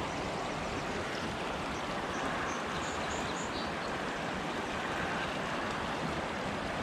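Provo River rushing in a steady, even roar of flowing water, with a few brief high chirps about halfway through.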